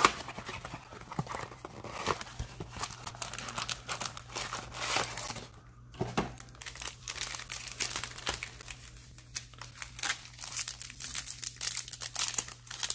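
Foil-wrapped Bowman baseball card packs crinkling as they are handled, with irregular crackles throughout and a short lull about six seconds in; near the end a pack's crimped seal is torn open.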